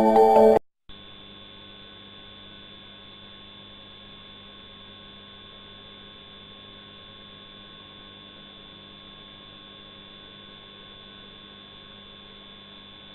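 Synthesizer music cuts off just under a second in. After that comes a steady electrical hum and hiss from a night-vision camera's microphone, with several fixed tones and nothing else changing.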